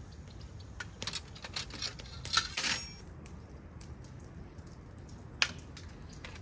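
Flat metal kebab skewers clicking and clinking against a large metal tray and each other as chicken pieces are threaded on and the skewers laid down. A quick cluster of clinks with a short scrape comes about two and a half seconds in, and one sharp clink near the end.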